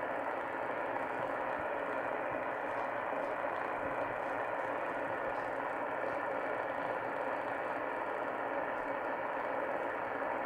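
Sangean ATS-818CS shortwave receiver tuned to CB channel 38 (27.385 MHz) in lower sideband, its speaker giving a steady hiss of band static with no readable signal.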